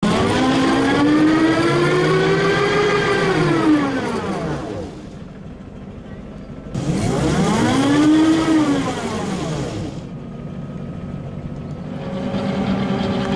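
ZIU-9 trolleybus's electric traction motor whining up in pitch and back down, twice, as its rear wheels spin in deep snow with a hiss of churned snow: the bus is stuck in a drift and its wheels can't grip. A steadier, lower hum starts near the end.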